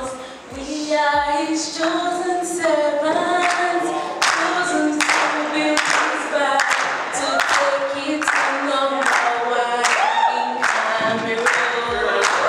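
A woman singing unaccompanied into a handheld microphone, a melodic line with some long held notes.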